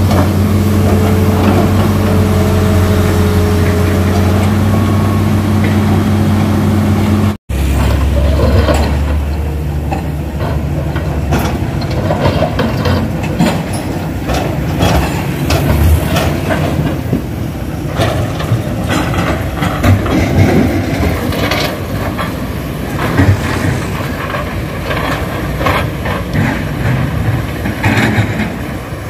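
Hitachi excavator's diesel engine running steadily with a high, steady whine. After a sudden cut about seven seconds in, rocks knock and clatter again and again as an excavator bucket loads them into a dump truck's bed, over running engines.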